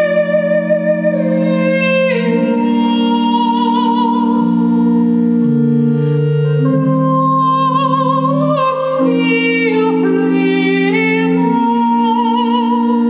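A woman singing in a trained, operatic style with vibrato, accompanying herself on a small pipe organ that holds slow, sustained chords changing every second or two.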